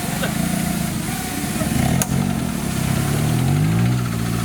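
Engine of a Suzuki Jimny-based off-road trial machine running and being revved up and down, its pitch rising and falling through the second half. One sharp click about two seconds in.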